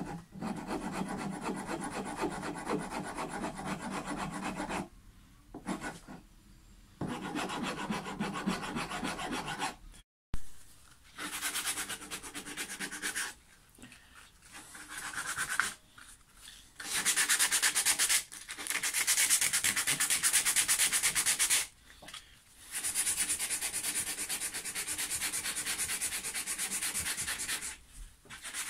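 The heel of a roasted maple guitar neck being filed and sanded: runs of rubbing, rasping strokes on wood lasting a few seconds each, with short pauses between. After a sharp break about ten seconds in, the strokes turn higher and hissier, more like sanding.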